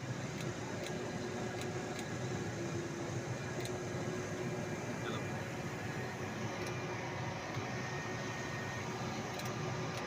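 An engine running steadily, a constant drone with a few faint ticks over it.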